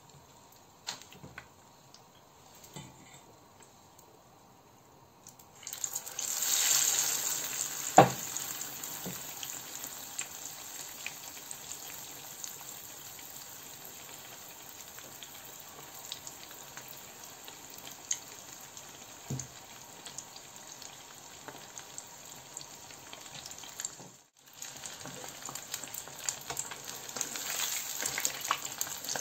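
A cornstarch-and-egg battered chicken breast is lowered into hot frying oil about six seconds in. It sets off a loud, sudden sizzle that settles into steady crackling frying. A single sharp knock follows about two seconds later, and the frying grows louder again near the end as the piece is turned with tongs.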